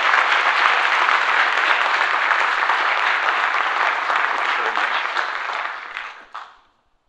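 Audience applauding, a dense steady clatter of many hands that dies away about six seconds in.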